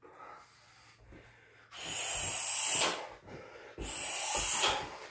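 A man breathing hard near the microphone: two long, noisy breaths, the first about two seconds in and the second a second later.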